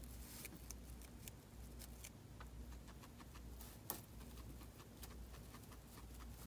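Guinea pig pulling hay from a rack and chewing it: faint, irregular crisp clicks and crunches, one a little louder about four seconds in.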